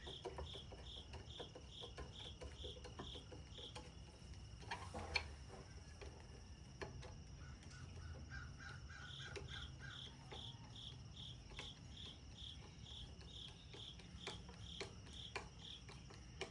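Faint, high, even chirping, repeated about three times a second, stopping for a few seconds in the middle and then starting again. Occasional light clicks and knocks come through under it.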